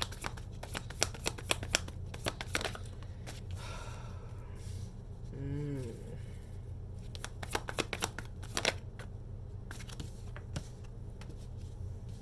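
Tarot cards being shuffled by hand: a rapid fluttering of card edges through the first few seconds, and again a little past the middle.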